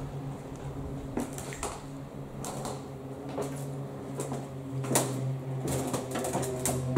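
Irregular footsteps and sharp knocks on the metal floor of an aircraft cabin, some in quick pairs, over a steady low hum.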